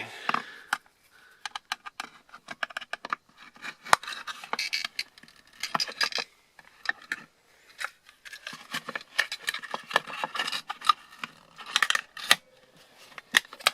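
Small metal parts of a laptop hard drive being handled and worked with a small screwdriver: a run of irregular clicks and ticks with several spells of scraping, as the drive's casing is opened.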